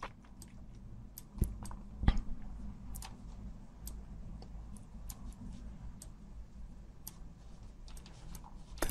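Faint, irregular clicks of a computer mouse and its buttons over a low steady hum, with two louder knocks in the first couple of seconds.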